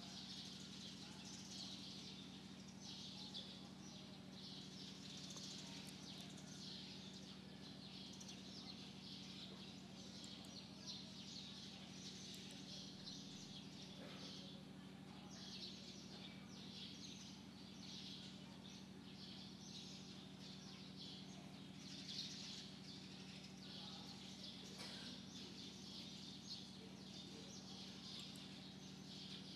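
Faint birds chirping and twittering on and off throughout, over a low steady electrical hum.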